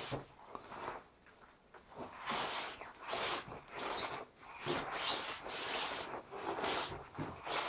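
Shiny yellow April Rain bib rain trousers swishing and rustling as the legs brush together with each walking step, along with rubber boots stepping on concrete. The swishes come about once or twice a second, with a brief lull about a second in.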